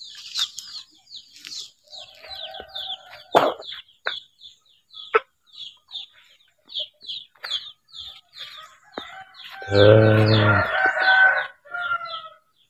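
A rooster crows once, loud and long, about ten seconds in, over a steady run of high, quick chirps and a few hen clucks. A few sharp knocks sound a few seconds in.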